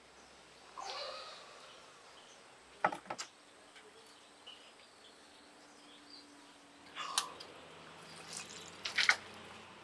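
Kitchenware knocking and clinking: two sharp knocks about three seconds in, another about seven seconds in and a louder pair near the end, over a faint background.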